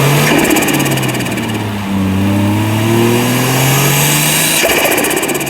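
Turbocharged 1G-FE straight-six in a Lexus IS200, running through a straight-pipe exhaust, climbing in revs under boost and then dropping off twice, once just after the start and again near the end. Each time the throttle closes, the turbo gives a rapid fluttering chatter.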